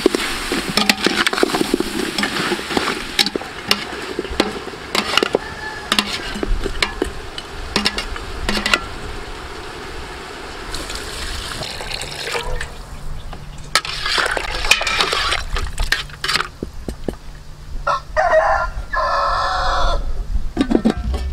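A metal ladle stirring and scraping against the side of an aluminium stockpot of braised oxtail, giving a run of clicks and scrapes. Near the end a rooster crows.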